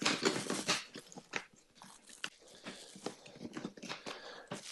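Black plastic toolbox lid being handled and pressed shut: a burst of crunching plastic clicks and creaks at the start, then scattered clicks and scrapes.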